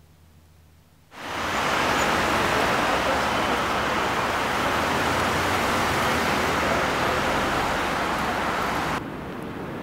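A loud, steady rushing noise that comes in suddenly about a second in and cuts off sharply near the end, giving way to quieter street traffic.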